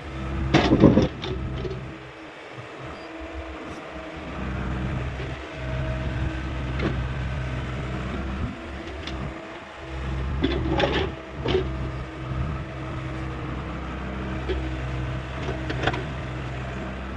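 Hyundai 85A excavator's diesel engine running steadily while it digs, with a loud clatter of knocks about a second in and another cluster of knocks around ten to twelve seconds in.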